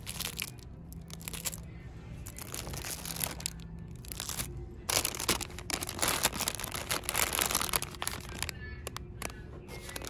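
Thin cellophane plastic wrap on packaged goods crinkling and crackling as it is handled, in irregular bursts that are heaviest from about halfway through.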